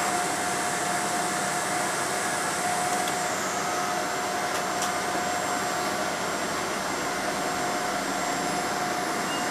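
Steady cabin noise inside a Boeing 777-200ER on the ground: an even rush of air with a steady whine from the running engines and cabin systems. The whine fades just before the end.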